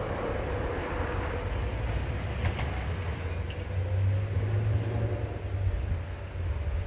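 Steady low rumble of wind on the microphone, with a faint wavering hum of honeybees around an open hive.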